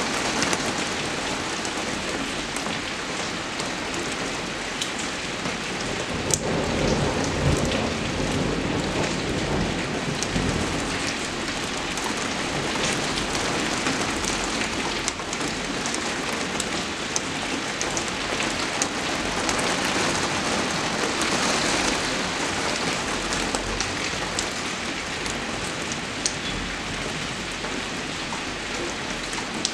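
Heavy rain falling steadily, with scattered sharp drop hits. A brief low rumble swells about six to eight seconds in.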